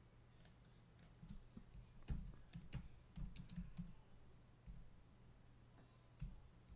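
Faint typing on a computer keyboard: irregular, quiet key clicks.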